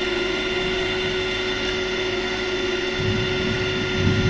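A steady mechanical hum with a constant tone over a hiss.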